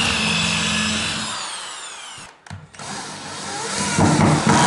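A drill-driver drives self-tapping screws through OSB into the floorboards. Its motor whine runs, slows and falls in pitch, and stops briefly about two and a half seconds in. It then starts again and builds to its loudest near the end.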